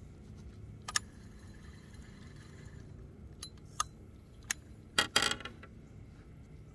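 Zebco 33 spincast reel being handled: a sharp click about a second in, a few lighter clicks, then a short rattling run of clicks about five seconds in, the loudest sound.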